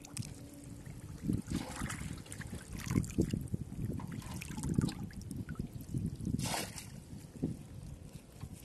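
Pond water sloshing and splashing as a man wades and dunks a bamboo polo fish trap, in uneven swishes with a brief sharper splash about two-thirds of the way through.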